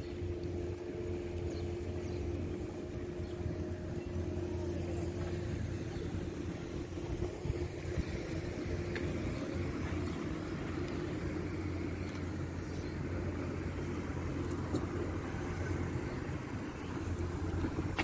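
Motor vehicle engine running steadily, a low hum with a steady higher tone over traffic noise.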